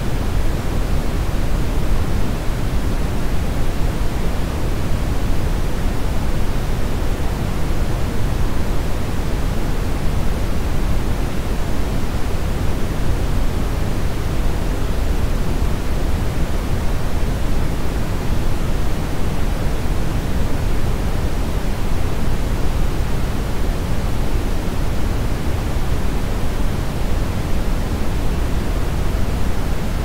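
Steady brown noise: an even, unchanging rushing hiss weighted toward the low end.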